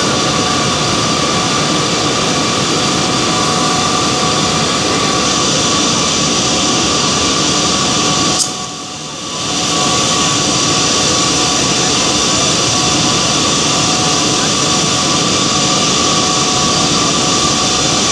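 Steady, loud roar of power-plant machinery with a constant high whine. It dips briefly for about a second just before the middle.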